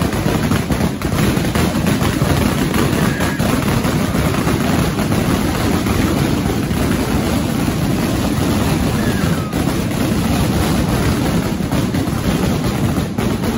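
Mascletà firecrackers going off in a dense, unbroken barrage, the bangs so close together that they merge into one continuous loud rumble, as in a mascletà's terremoto (earthquake) finale.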